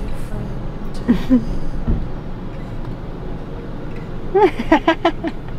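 A ramune bottle being opened by pushing its glass-marble stopper down: a pop about two seconds in, then the soda fizzes and foams over. A quick run of short cries near the end.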